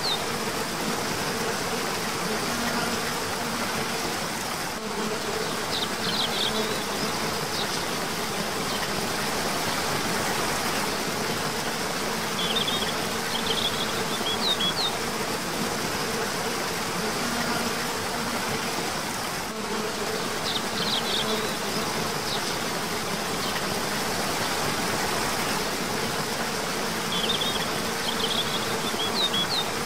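Steady rush of a cascading waterfall, with short clusters of high bird chirps every several seconds.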